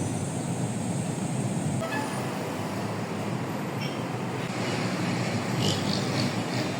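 Steady rumble of motor vehicles in city traffic, with a few brief high-pitched sounds about two-thirds of the way through.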